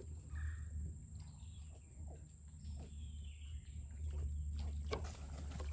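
A few short, faint animal chirps and calls over a steady low rumble.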